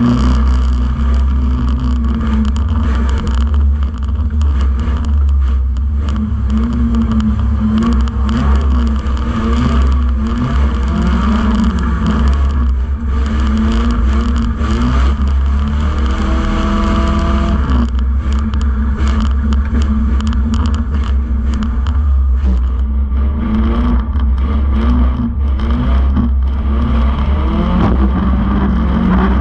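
Banger racing car's engine heard from inside its stripped-out shell, running hard with the pitch rising and falling as it revs up and down, over a heavy low rumble.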